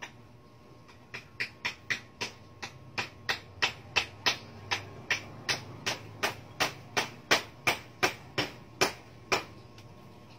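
A steady run of sharp knocks, about three a second, starting about a second in and stopping shortly before the end, over a low background hum.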